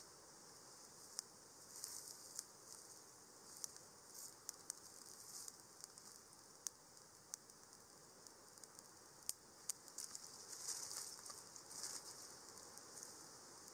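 Faint, irregular crackling and sharp ticks over a quiet background, with a denser patch of crackling toward the end.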